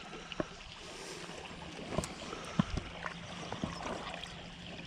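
A small stream flowing, a steady water sound with a few scattered clicks through it.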